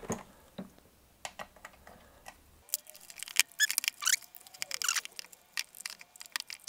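Scattered clicks and light knocks from handling the Proxxon TBS 12 drill press head, the metal and plastic housing parts tapping as it is turned over and pried at. From about three seconds in the clicks come thicker and sharper.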